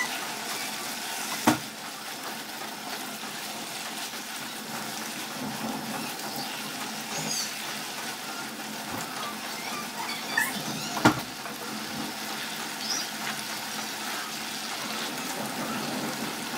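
Pork and bean sprouts sizzling in sauce in a nonstick frying pan while a spatula stirs them. The spatula gives two sharp knocks against the pan, about a second and a half in and again around eleven seconds.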